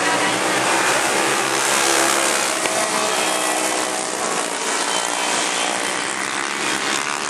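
A pack of racing go-kart engines running hard as the karts lap the track, several engine notes overlapping and shifting in pitch. The sound is loudest about two seconds in and thins out a little after the middle as the pack moves off.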